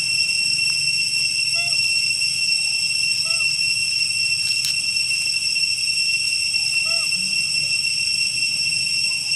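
Steady, high-pitched insect drone of several even tones, with a short rising-and-falling animal call heard three times.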